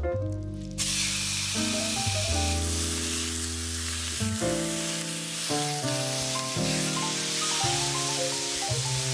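Raw ground beef sizzling in a hot frying pan as it is broken up with a wooden spoon; the sizzle starts about a second in, when the meat lands in the pan. Background music plays throughout.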